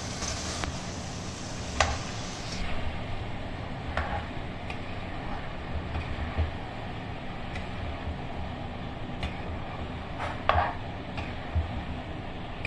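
Metal spatula stirring and scraping duck meat, bamboo shoots and potatoes in a metal kadai, over a steady frying hiss. A few sharper scrapes and knocks against the pan stand out, about two, four and ten and a half seconds in.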